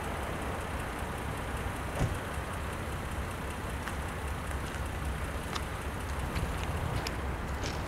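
Diesel freight locomotive approaching slowly: a steady low engine rumble under a hiss, with one sharp click about two seconds in and scattered light clicks in the second half.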